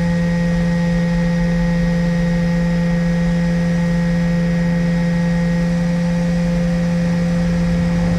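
Hot air rework station blowing steadily while it heats the solder on a phone's ringer speaker to desolder it, with a loud, even hum.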